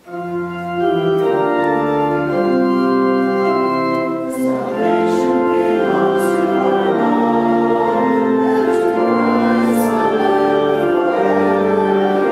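Church organ playing a hymn in sustained chords that change about once a second, starting suddenly.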